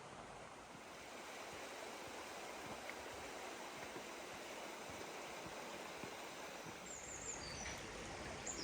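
Steady rush of a flowing stream, growing slightly louder, with a few short high bird chirps near the end.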